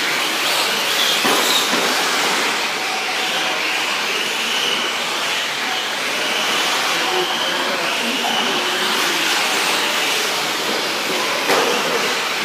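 1/10 scale electric 4WD short course RC trucks racing on a dirt track: a steady noise of motors and tyres, with a high motor and gear whine rising and falling as the trucks accelerate and brake. A short knock sounds near the end.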